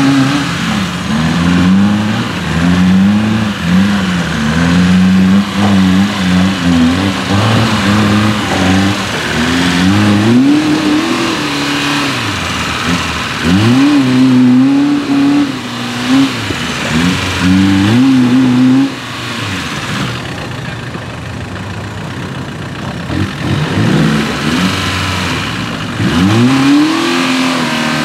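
Rock-crawler buggy's engine revving in repeated short throttle blips, the pitch rising and falling again and again as it climbs a rocky trail. About two-thirds of the way through it drops to a lower, steadier run for a few seconds, then the blips resume.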